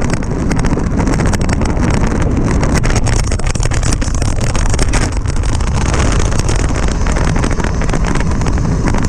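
Mountain bike descending a rough dirt trail at speed: wind rushes steadily over the camera microphone, and the tyres and frame rattle over the ground in a constant run of small knocks.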